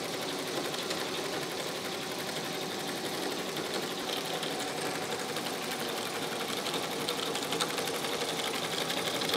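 SGK computerized embroidery machine stitching a metal ball chain down onto fabric through its cording device: a steady, rapid needle clatter.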